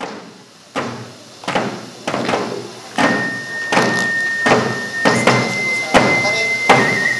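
Live Pascola dance music: a drum struck about once every three-quarters of a second, getting louder, joined about three seconds in by a single held high flute note that steps up a little and then drops back near the end.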